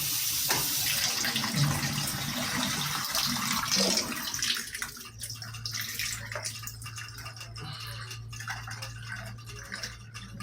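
Shower head spraying water, a steady hiss. About halfway through the hiss drops away, leaving a quieter steady low hum with scattered small clicks.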